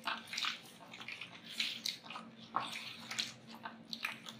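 A hand mixing a thick, wet spice-and-yogurt marinade in a steel bowl: irregular squelching, smearing strokes, a few each second, over a faint steady hum.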